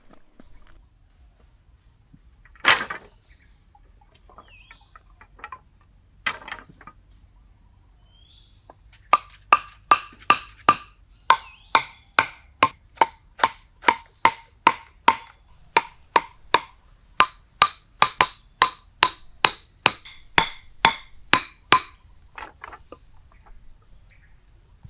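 Two sharp knocks, then a long quick run of sharp wooden-sounding knocks, two to three a second, with faint high chirps.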